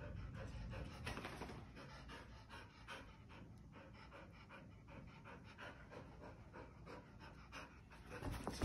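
A dog panting quietly, out of breath from play.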